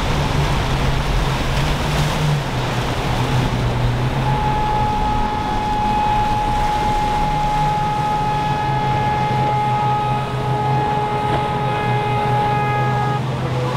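A boat's horn sounds one long, steady blast, starting about four seconds in and cutting off just before the end, as a warning to a jet ski in the middle of the inlet. Under it, the triple Yamaha 300 outboards drone as the boat runs through breaking surf.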